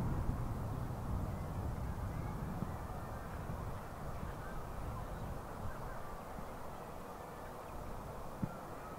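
Crows cawing faintly over a low rumble that slowly fades. A faint steady tone comes in near the end.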